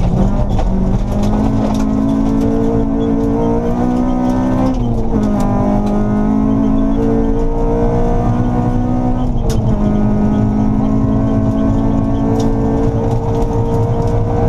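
Honda Civic rally car's engine heard from inside the cabin, accelerating hard on gravel: the revs climb, drop sharply at an upshift about five seconds in and again at one near ten seconds, then climb again. Under it runs a constant rumble of tyres on gravel, with scattered ticks of stones.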